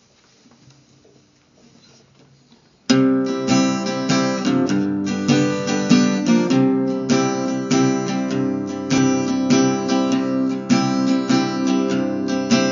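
Acoustic guitar strumming the intro of a country song, coming in suddenly about three seconds in after a faint lead-in.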